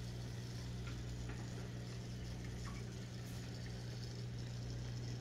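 Steady low hum of the quarantine tank's running equipment (pumps of the sponge filter and nano skimmer), with a few faint ticks.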